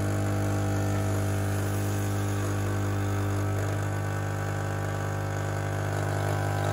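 Rancilio Silvia espresso machine's vibratory pump humming steadily as it pushes water through the coffee puck during a shot.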